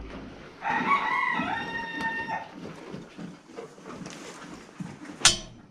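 A rooster crows once, a call of nearly two seconds starting about half a second in. Near the end there is a single sharp clack.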